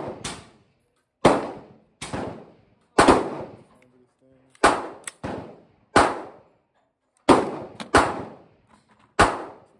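An Omni Maxx AR-15 pistol fired semi-automatically: about nine loud shots at an unhurried, uneven pace, roughly half a second to a second and a half apart, each followed by a short ringing echo off the range shelter's roof.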